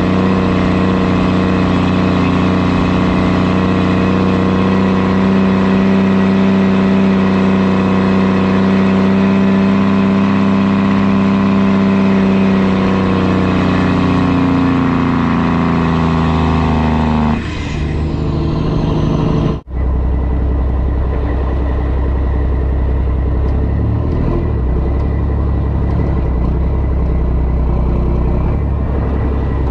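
Engine and road noise of a truck towing an excavator on a trailer, a steady drone that climbs a little in pitch toward the middle. After a sudden break about two-thirds in, a deeper, lower engine rumble follows.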